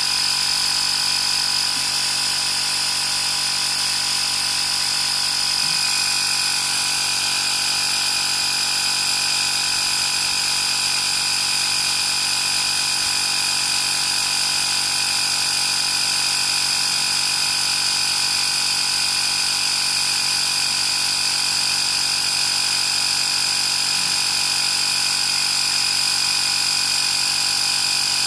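Workzone Titanium 20V cordless air compressor running steadily as it inflates a car tyre: a continuous motor-and-pump drone with a strong high whine, its pitch stepping slightly about six seconds in.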